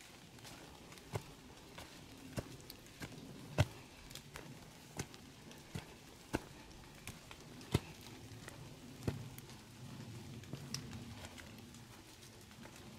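Footsteps on a trail at a steady walking pace, a sharp step about every two-thirds of a second.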